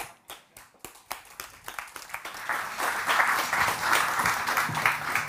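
Audience applauding: a few scattered claps at first, filling in to full, steady applause about halfway through.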